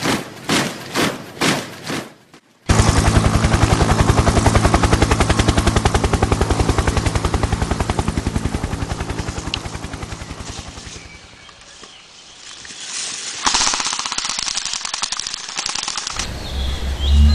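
Rapid automatic fire, a fast even rattle that starts about three seconds in, fades away through the middle and picks up again near the end.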